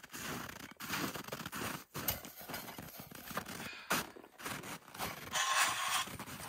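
Boots crunching in snow as someone walks up close, a step every half second or so, with gear knocking. About five seconds in comes a longer rustle and scrape as a folding seat is set down and sat on.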